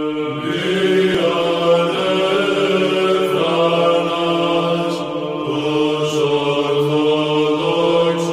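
Greek Orthodox Byzantine chant: voices singing a slow melody over a steady held drone note.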